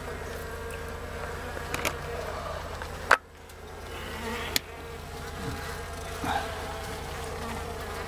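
Honey bees from a large established hive buzzing in a steady, humming drone. A sharp knock comes about three seconds in and a smaller one a second and a half later.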